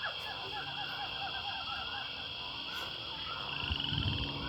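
A chorus of small animal calls: many short chirps repeating quickly, with a fast trill about three and a half seconds in. A few low thumps come near the end.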